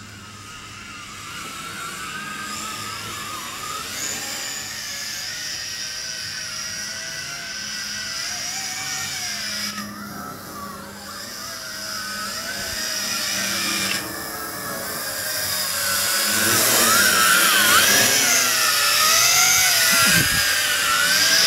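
Yizhan Tarantula X6 quadcopter's motors and propellers whining, the pitch wavering as the throttle changes. It grows steadily louder as the drone comes down from high overhead to hover close by.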